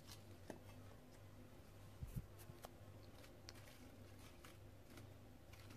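Near silence with a faint low room hum and a few light taps and rustles of lettuce leaves being laid on a ceramic serving platter, with a soft thump about two seconds in.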